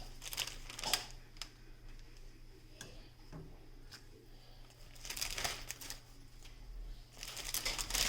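Kitchen handling sounds: scattered light clicks and knocks, with two short stretches of rustling about five seconds in and near the end.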